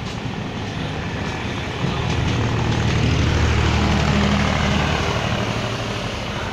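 Diesel engine of a stationary WDG-3A locomotive (ALCO 16-cylinder) running at standstill with a low, tractor-like throb. It grows louder about two seconds in and fades after about five seconds as it is passed, over the steady running noise of the passing local train.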